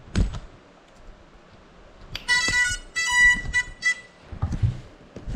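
A thump, then a short broken run of high electronic beeps from a GEPRC Cinelog 35 FPV drone with its propellers stopped, and a few handling knocks near the end.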